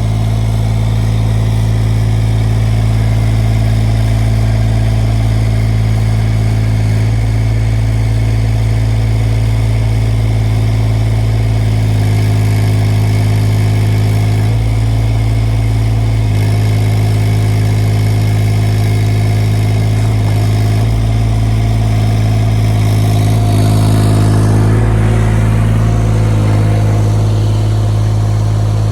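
SDLANCH ME20 mini excavator's three-cylinder Yanmar 3TNV74F diesel engine running steadily at close range. It gets louder for a few seconds about three-quarters of the way through.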